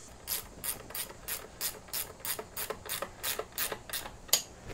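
Ratchet wrench with a 19 mm socket clicking about three times a second as it runs down the top cap bolt of a motorcycle front fork.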